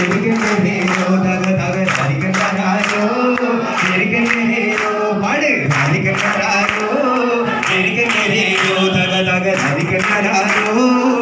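A man singing a Malayalam folk song into a microphone, with a group of voices singing along, over a steady beat of about two to three strokes a second.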